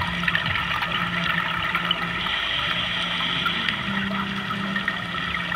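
A steady rush of water, even and unbroken, with a low hum beneath it.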